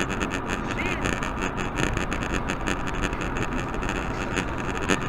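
Steady engine and road noise of a car driving, as picked up by a dashcam, with no impact heard.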